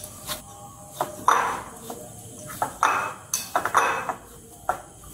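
Hand kneading rice-flour dough on a ceramic plate: irregular clinks and taps against the plate, with short bursts of the dough being rubbed and squashed between them.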